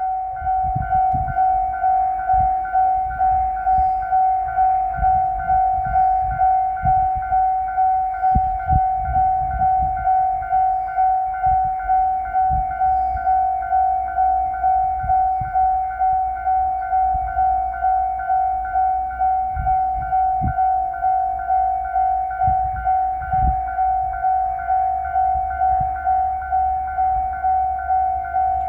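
Japanese railway level-crossing bell ringing its electronic 'kan-kan' tone, a steady ding repeated about twice a second, with irregular low thumps and rumble underneath.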